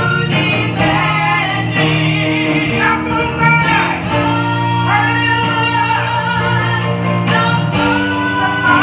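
Two women singing a gospel praise song into microphones, holding long notes over instrumental accompaniment.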